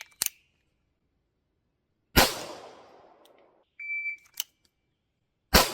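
Electronic shot timer beeping, each beep followed by a single pistol shot fired from the draw. One shot comes about two seconds in, another timer beep about four seconds in, and a second shot near the end; each shot rings out for about a second.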